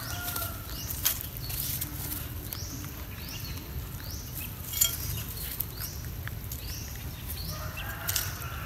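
Outdoor ambience with a short high chirping call repeated steadily about every two-thirds of a second. Light clicks come from the animals eating, and a rooster starts to crow near the end.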